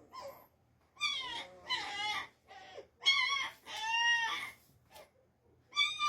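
Young puppies crying and whining: about six separate high-pitched, wavering cries in quick succession, typical of hungry unweaned puppies waiting to be bottle-fed.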